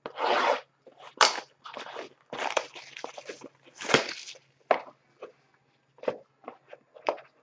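A sealed cardboard box of trading cards being torn open by hand: a series of short crinkling, tearing and rustling bursts with a few sharp clicks.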